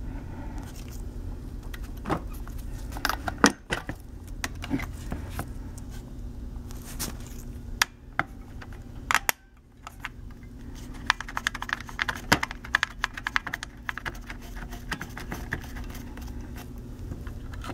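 Scattered clicks, taps and handling noise as an extended battery is fitted to the underside of a Dell Latitude E6420 XFR rugged laptop, with a quick run of small clicks about eleven seconds in.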